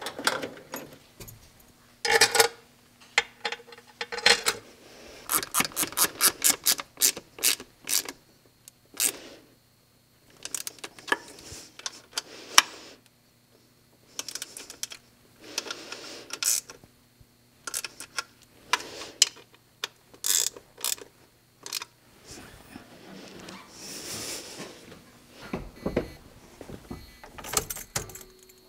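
Hand tools working on a truck engine: a ratchet wrench clicking in quick runs of about four clicks a second, among scattered metallic clinks and knocks.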